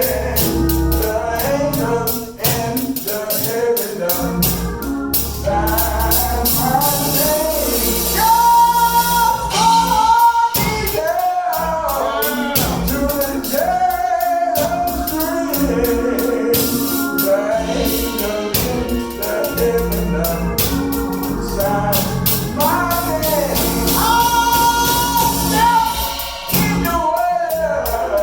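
Gospel song: voices singing over an instrumental backing, with a tambourine shaken along with the beat.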